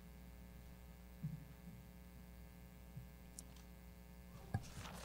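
Steady electrical mains hum from a microphone and sound system, with a few faint clicks and knocks. A sharper knock comes about four and a half seconds in, followed by rustling near the end.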